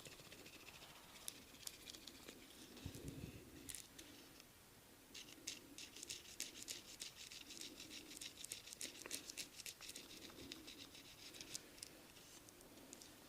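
A barber's hands rubbing and kneading during a massage: rapid, faint crackling and scratchy clicks, thickest from about five seconds in.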